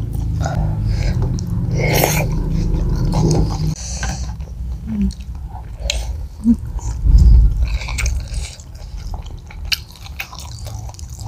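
Two people chewing and biting into spicy fried chicken up close, with wet lip-smacking clicks. A low rumble runs through the first few seconds, and a loud low thump comes about seven seconds in.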